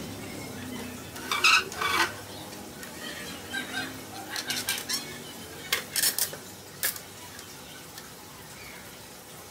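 Wooden parts of a folding stool knocking and clacking as it is folded up by hand: two loud clacks about one and a half and two seconds in, a run of lighter knocks around four to five seconds, then two more sharp knocks near six and seven seconds.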